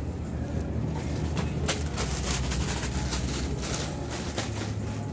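Supermarket background rumble, steady and low, with a run of rustles and clicks in the middle from a handheld phone being carried by someone walking.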